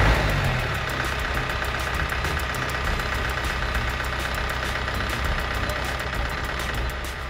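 SML truck's diesel engine idling steadily, with a short louder burst right at the start.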